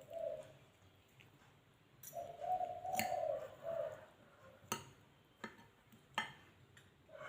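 A bird calling in wavering notes, once briefly at the start and again about two seconds in. Four sharp clinks of cutlery against a plate follow over the next few seconds.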